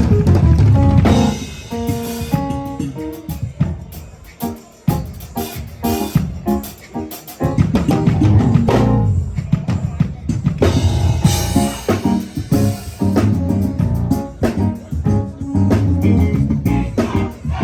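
Live band playing: a drum kit with bass and guitar. It drops to sparser playing with drum hits about a second in, and the full band comes back in around seven to eight seconds.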